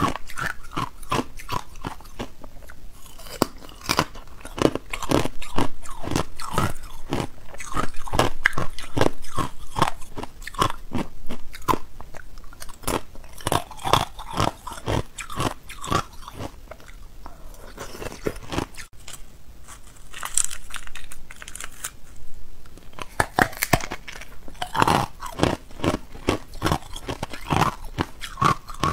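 Hard ice being bitten and chewed close to the microphone: a dense run of sharp crunches and cracks, several a second.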